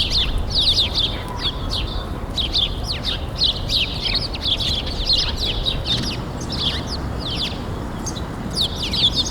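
A flock of small birds chirping, many quick high chirps overlapping without pause over a steady low background hiss.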